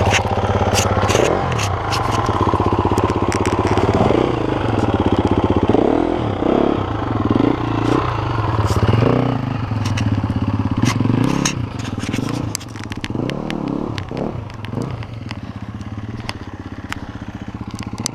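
Dirt bike engines running: a steady idle close by, while a KTM 250 EXC-F four-stroke revs up and down hard as it climbs a dirt slope, with sharp clicks and clatter of stones and dirt. The revving eases off about two-thirds of the way through.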